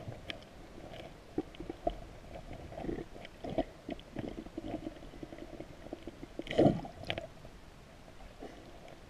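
Muffled underwater gurgling of river water heard through a submerged GoPro's waterproof housing, with scattered small knocks and one louder knock about six and a half seconds in.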